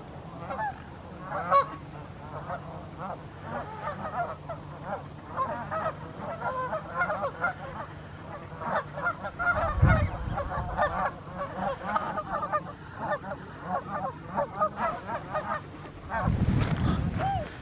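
A large flock of wintering waterfowl calling, many short goose-like honks overlapping without pause. Two brief low rumbles break in, one about halfway and one near the end.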